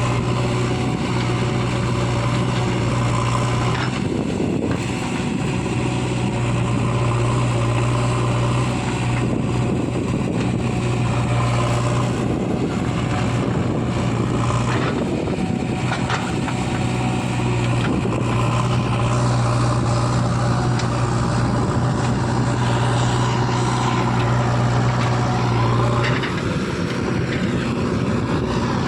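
Heavy diesel engine of earth-moving machinery running steadily under load, its deep hum briefly changing about four seconds in and again near the end.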